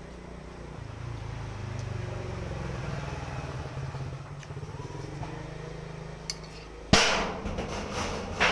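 Low engine hum of a passing motor vehicle, swelling about a second in and then easing off. About seven seconds in there is a sudden loud knock, followed by a short spell of noise.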